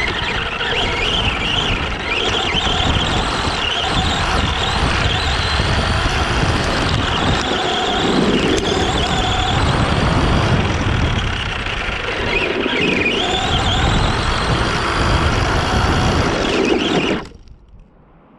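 Arrma Granite 4x4 RC truck driving hard: the whine of its electric motor rises and falls with the throttle over a dense rush of tyre and drivetrain noise, and it cuts off suddenly near the end.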